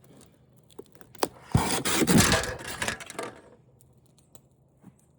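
Scraping and rubbing of flat-screen TV parts being handled, loudest for about two seconds in the middle, with a few light clicks and knocks around it.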